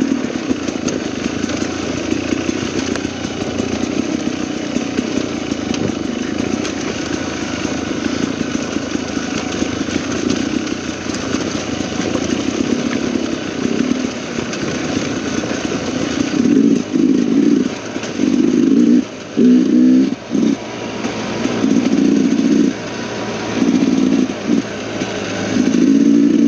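Dirt bike engine running as the bike is ridden over a rough trail: steady at first, then in the second half the throttle is opened and closed in a series of short, louder surges.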